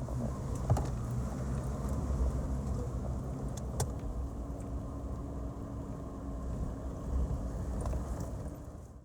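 Off-road vehicle driving on a rough dirt forest road: a steady low engine and tyre rumble with a few sharp knocks and rattles from the bumpy track.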